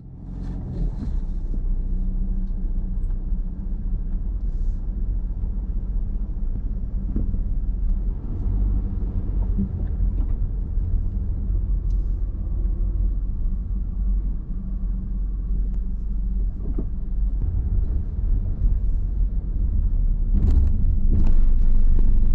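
Steady low engine rumble, with a few knocks near the end.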